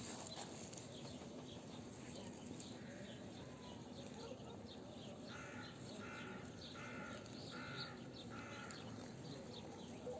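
A crow cawing five times in a row, about one call every 0.7 s, beginning about halfway through, over faint chirping of small birds.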